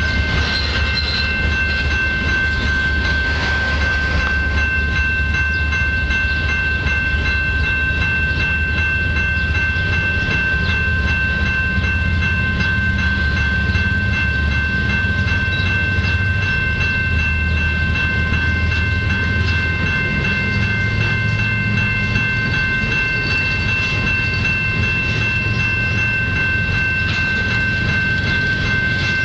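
A freight train of covered hopper cars rolling past: a steady low rumble with the fast clatter of wheels on the rails, and a steady high whine held over it.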